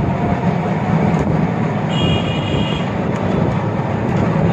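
Steady engine and road noise of a moving auto-rickshaw, heard by a rider on board. A brief high-pitched tone, like a horn, sounds about two seconds in.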